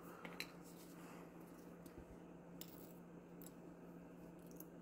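Near silence with a faint steady hum and a few light clicks of small plastic minifigure parts being handled and fitted together, the clearest about half a second in.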